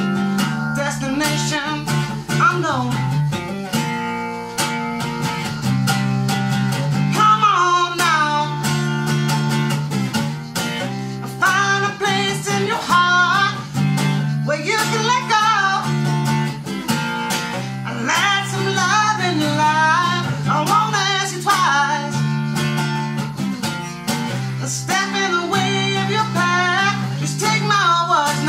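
Acoustic guitar strummed steadily, with a man singing over it in phrases from about a quarter of the way in.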